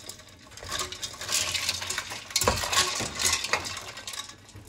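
Ice cubes clinking and water sloshing in a stainless steel pot as a hand stirs a cooked blue swimmer crab through an ice bath, with a few sharper knocks of ice against the pot's side.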